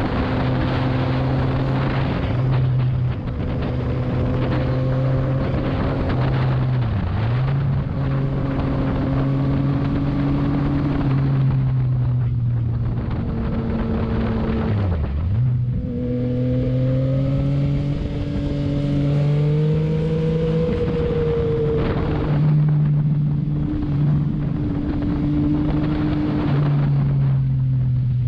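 Yamaha MT-09's three-cylinder engine running steadily at cruising speed, with wind rush over the microphone. The engine note dips briefly twice, as on a gear change, and climbs as the bike speeds up about halfway through.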